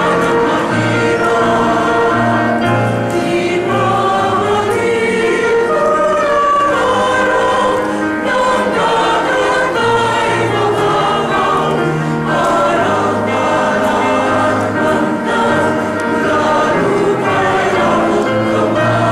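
A choir singing, several voice parts sounding together in sustained, overlapping notes.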